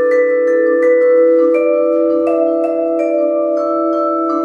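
Closing background music: a mallet-percussion melody of struck notes, about three a second, each ringing on and overlapping the next.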